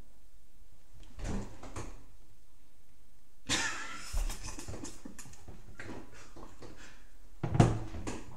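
Handling noises close to the microphone: a burst of rustling about three and a half seconds in, a few lighter knocks, and a sharp thump near the end.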